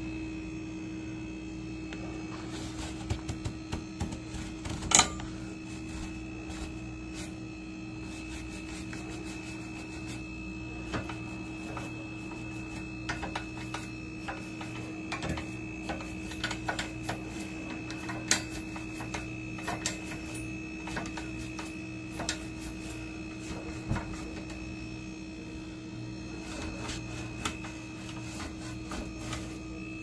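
Toothbrush scrubbing the refrigerator's coils: irregular scratches and clicks of bristles and plastic against the metal, the sharpest about five seconds in, over a steady electrical hum.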